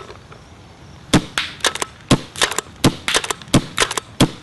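Pump-action paintball marker (Sanchez Machine SM1 with CCM internals), its barrel wrapped in a cloth 'cloud dampener' sleeve, fired in quick succession. About a second in, a rapid run of sharp pops and pump clacks starts, several a second.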